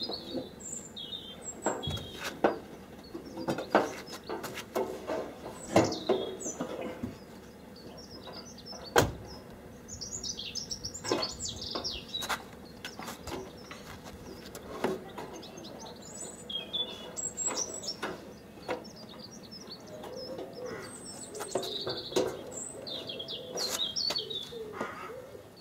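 Birds chirping on and off, with scattered knocks and clunks as a car's front wing panel is handled and manoeuvred into place; one sharp knock about nine seconds in is the loudest.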